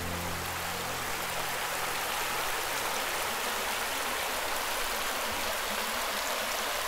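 Shallow river water running over a stony bed: a steady rushing hiss.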